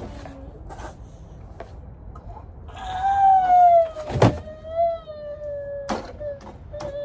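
A young child whining in one long, drawn-out wail that begins about three seconds in and slowly sinks in pitch, from a child upset at not getting a new toy. Two sharp knocks sound partway through.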